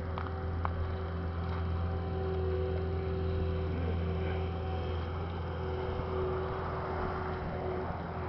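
A steady low mechanical hum of running machinery or an engine, with a few faint steady tones above it and no clear rise or fall.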